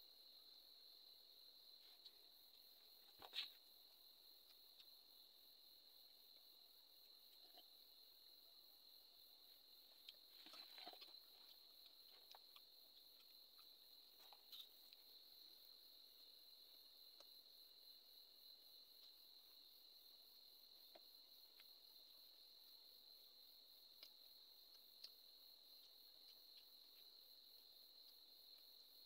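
Near silence with a steady high-pitched cricket trill. A few faint clicks and a brief rustle come from eating off a plate, the sharpest click about three seconds in.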